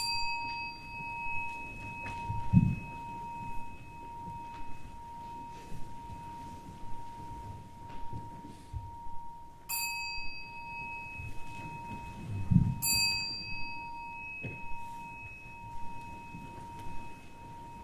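A bell ringing with one steady, sustained tone. It is struck sharply three times: at the start, about ten seconds in and about thirteen seconds in. Two soft low thuds come at about two and a half seconds and about twelve and a half seconds in.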